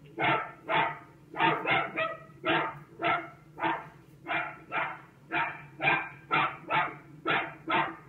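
A dog barking over and over, about two barks a second, some in quick pairs, heard through a thin, low-fidelity recording.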